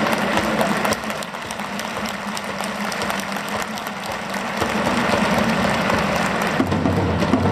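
Stadium crowd applauding after a goal, a dense, steady wash of clapping.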